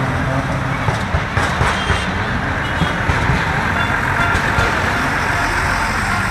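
Road traffic at close range: vehicle engines running as large vehicles drive past, with one engine revving up about five seconds in.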